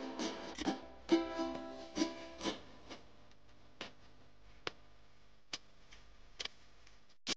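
Light background music on a plucked string instrument. A quick run of notes fills the first three seconds, then a few sparse single plucks follow.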